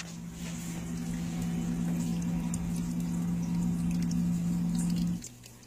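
Misting pump running with a steady hum while water sprays and patters on the leaves, then the pump cuts off suddenly about five seconds in.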